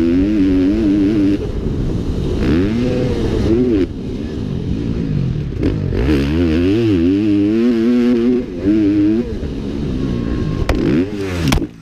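Motocross bike engine heard on board from the rider's helmet, revving up and down again and again as the throttle is worked. Near the end there is a sharp knock and the engine sound drops away suddenly.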